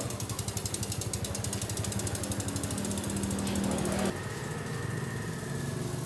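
Bicycle rear-hub freewheel ticking rapidly as the bike is pushed along, a fast even ratchet clicking over a low steady hum. The clicking breaks off abruptly about two-thirds of the way through.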